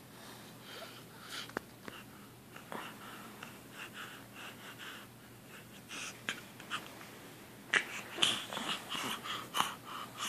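A five-month-old baby grunting and breathing noisily, in short wheezy puffs. They come more often and louder in the last couple of seconds.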